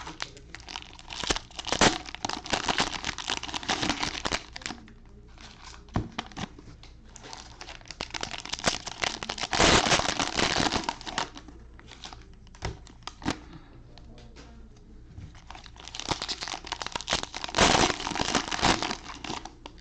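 Cellophane wrappers of Panini Prizm cello packs crinkling and tearing as they are opened and handled, in three spells of dense crackling with sharp clicks, with softer rustling of the packs and cards in between.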